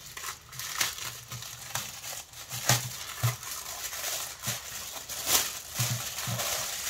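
Thin plastic packaging crinkling and rustling as hands crumple and open it, in irregular crackles with a few sharper crinkles along the way.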